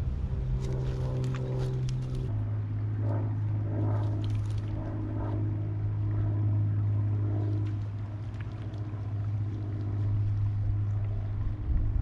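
A steady mechanical drone from an engine or motor running, a low hum with overtones that steps down a little in pitch about two seconds in, with faint clicks and rustles over it.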